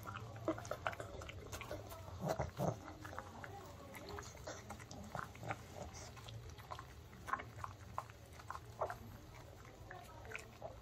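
Pug chewing and licking a baked homemade chicken treat held in a hand: irregular wet chewing smacks and clicks, a few louder ones about two seconds in.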